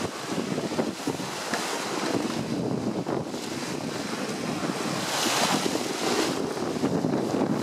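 Wind buffeting the microphone over the rush of water along a sailboat's hull as it pitches through choppy standing waves, with a louder hiss of spray off the bow about five seconds in.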